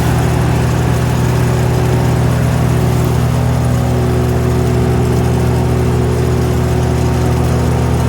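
GreenMech Arborist 150 wood chipper's engine running at a steady speed, with no wood being fed or chipped.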